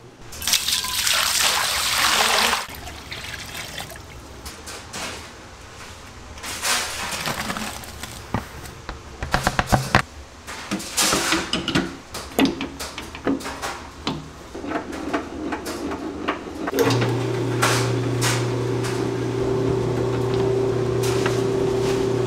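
Liquid poured into a stainless steel mixing bowl for a couple of seconds, then scattered clinks and rustles as ingredients are handled. About three-quarters of the way through, a commercial planetary dough mixer starts and runs with a steady hum as its dough hook works the flour into donut dough.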